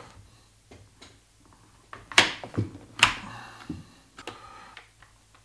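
Plastic knocks and clicks as an activated carbon filter cartridge is handled and clipped back onto a reverse osmosis unit's plastic holder. Scattered light taps, with two louder sharp clicks about two and three seconds in.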